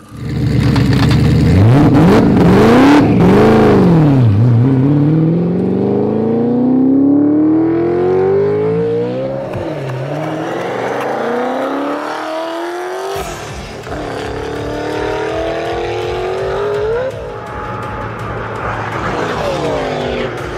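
Heavily modified 2006 Ford GT's V8 engine revving hard a couple of times, then accelerating at full throttle with the pitch climbing steadily. After a sudden cut, a second full-throttle run climbs again and then falls away in pitch as the car goes past.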